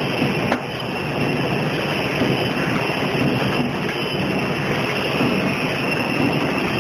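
Peanut brittle cutting machine running, its conveyor belt and rollers making a steady mechanical noise, with one sharp click about half a second in.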